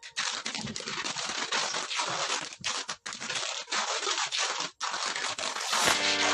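Packing tape being pulled off its roll in long stretches as it is wound around a cardboard box, a rasping tearing sound with short breaks between pulls. Music comes in near the end.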